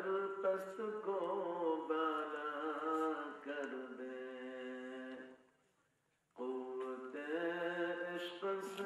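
A man's voice chanting melodically through a microphone and loudspeaker, drawing out long held notes. One phrase ends a little past halfway, and after a short pause a second phrase begins.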